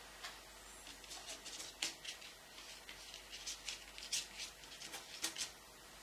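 Paintbrush laying oil paint onto the painting: a rapid, irregular run of short scratchy strokes, about a dozen and a half, stopping shortly before the end.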